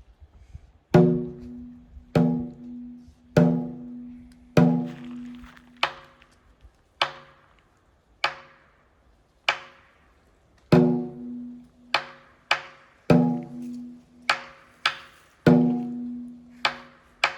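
A steady series of percussive strikes, about one every second and a quarter, most ringing briefly with a low pitched tone. A few extra hits fall between the beats in the second half.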